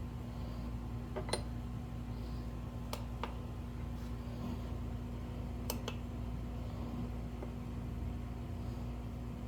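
A handful of light clicks and taps from handling a knife-edge sharpness tester and its test clip, over a steady hum. The clicks come singly or in quick pairs, a second or more apart.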